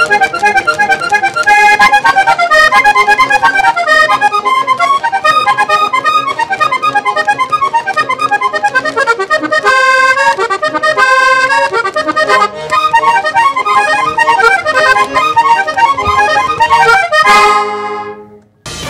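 Diatonic button accordion played solo in vallenato style: a fast run of melody and chords, ending near the end on a held chord that cuts off abruptly.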